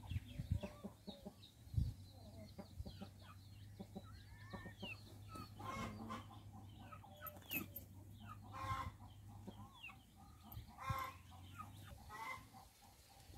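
Faint clucking of chickens with other short bird calls scattered throughout, over a low steady hum.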